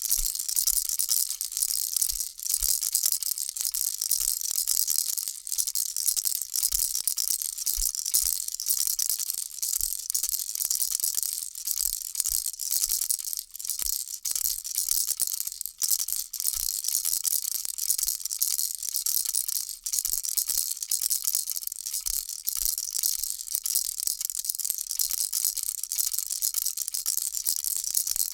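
Baby rattle shaken continuously, a dense high-pitched rattling of many tiny clicks that eases briefly every few seconds.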